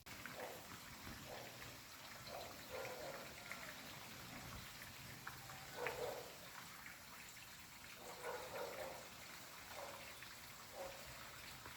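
Faint trickling water with scattered soft drips, one a little louder about six seconds in.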